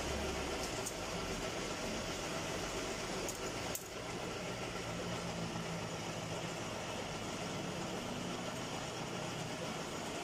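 Metal lathe running steadily in a machine shop, a continuous machine noise with a low hum, while a motorcycle crankshaft end is machined for threading. It drops briefly with a sharp click about four seconds in.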